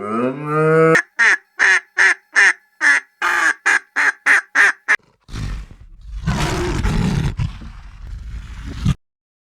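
The end of a low, drawn-out cow moo, then a quick run of about fourteen short, nasal duck quacks, three or four a second. After that comes a low, rough animal growl lasting about four seconds, which cuts off suddenly.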